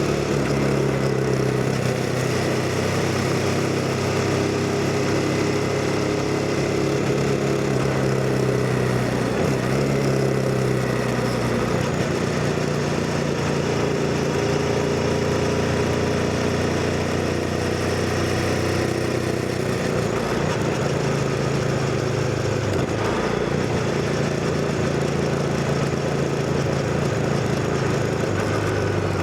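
CFMoto 250NK motorcycle's single-cylinder engine running under way, its note shifting up and down a few times as the revs change.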